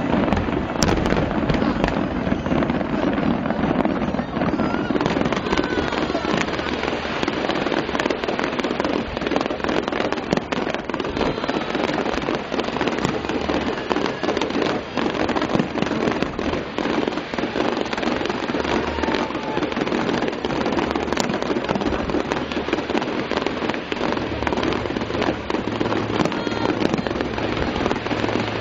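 Aerial fireworks bursting in rapid, overlapping bangs and crackle throughout, with a crowd of spectators talking underneath.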